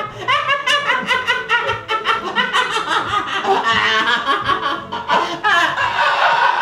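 A person laughing manically in a fast run of short bursts, about four a second, over music.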